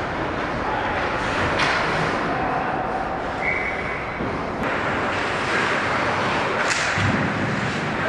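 Ice hockey game play in a large echoing rink: a steady wash of skates on the ice, with a few sharp stick-and-puck clacks about a second and a half, four and a half and six and a half seconds in.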